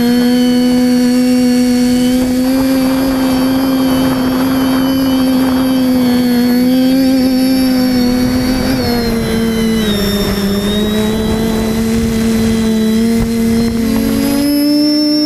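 Brushless motors and propellers of a TBS Discovery Pro quadcopter (TBS 1000KV motors) whining steadily in flight, heard from the onboard camera. The pitch settles lower about nine seconds in and climbs again near the end as the throttle changes.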